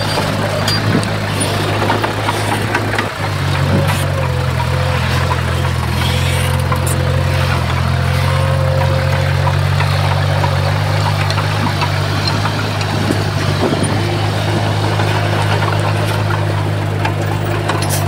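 Heavy diesel engine of earthmoving machinery running steadily under load, with a brief dip and pick-up about three seconds in.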